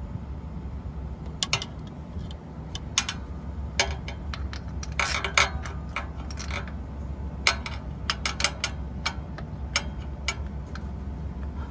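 Hand ratchet and socket clicking and clinking in short irregular spells while loosening a starter mounting bolt on a Dodge Charger, over a steady low hum.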